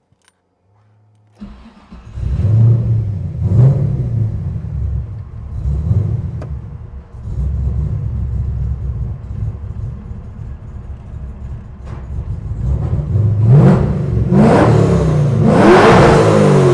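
LS3 6.2-litre V8 in a Nissan 350Z starting about a second and a half in, blipped a few times, settling to a steadier run, then revved up near the end. It is running on the Haltech Nexus Rebel LS's base map with no tuning.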